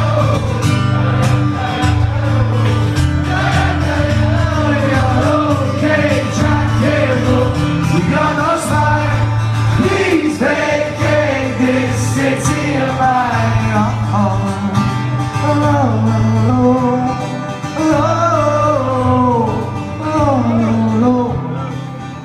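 Acoustic guitar strummed in steady repeated chords under a sung melody, in a live solo acoustic performance of a pop-rock song.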